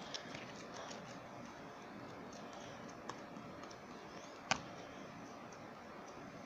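Scattered faint clicks, with one sharp click about four and a half seconds in, over steady low room noise.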